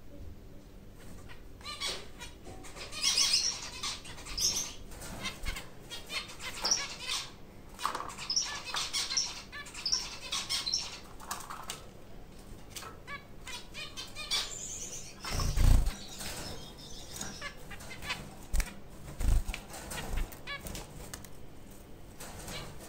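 White zebra finches fluttering their wings and moving about a wire cage, with scattered short rustles and clicks from the nest fibres and cage. About two thirds of the way through comes a louder low thump, with a few smaller knocks after it.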